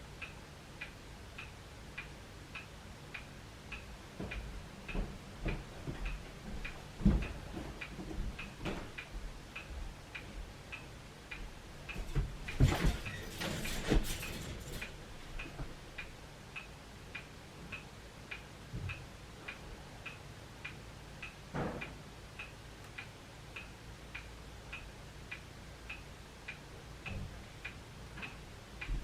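A clock ticking steadily, about two ticks a second, with scattered soft knocks and a louder burst of rustling noise in the middle.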